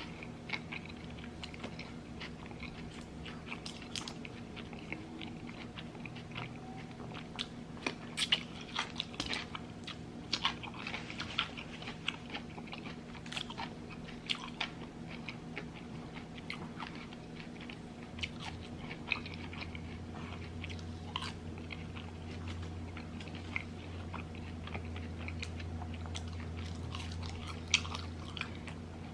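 A person eating, biting and chewing food with irregular wet mouth clicks and crunches.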